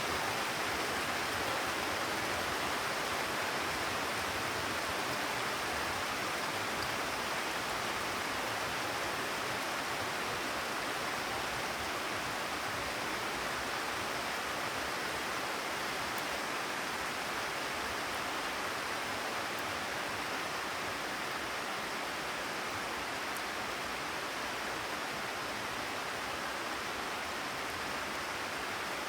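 Steady rain falling on a terrace, an even hiss with no thunder.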